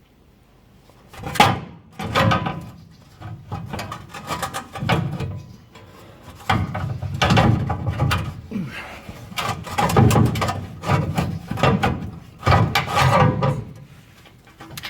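Steel transmission mount plate being worked free from under a car, scraping and rubbing against the underbody in repeated irregular pushes, with knocks; the sharpest knock comes about a second and a half in.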